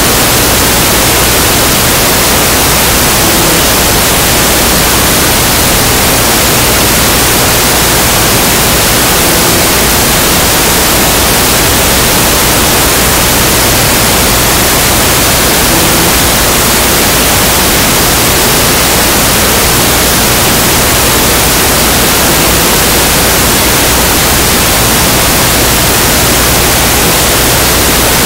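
Loud, steady hiss of static-like noise that covers the whole sound range and never changes, with no other sound standing out from it.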